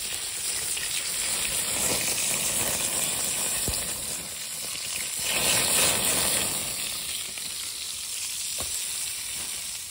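Steak sizzling as it sears in hot oil in a titanium frying pan held over an open fire, with the oil flaring into flames in the pan. The sizzle is loud and steady and swells to its loudest about halfway through.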